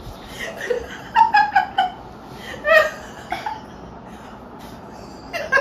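Women laughing in short giggling bursts, loudest about a second in and again near three seconds.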